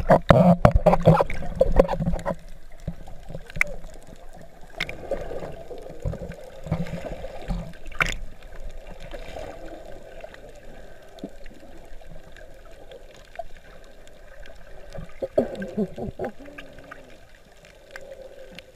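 Splashing as a GoPro goes from the surface to under the water, loud for the first two seconds. Then the muffled underwater sound of swimming: water rushing over the submerged microphone, with scattered small clicks.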